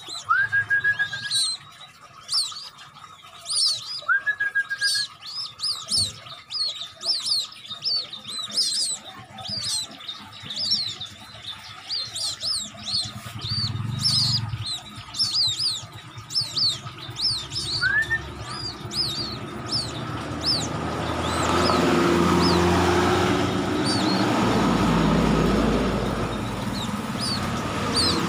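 Newly hatched white-breasted waterhen (ruak-ruak) chicks and a quail chick peeping rapidly: thin high calls, several a second, with a few short rising whistles among them. About two-thirds of the way through, the peeps thin out as a loud rushing noise with a low rumble swells up and drowns them.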